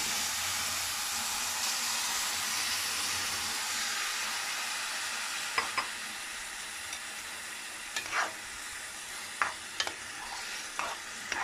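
Grated and diced tomatoes sizzling in hot oil with fried onions in a pan, the hiss easing slowly as the pan cools. From about halfway through, a metal spoon stirring the mixture clicks against the pan a few times.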